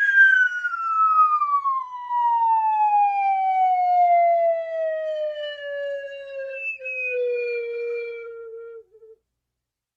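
A comic sound effect: one long whistle-like tone that glides slowly down in pitch for about nine seconds, with a brief hitch near seven seconds, then cuts off.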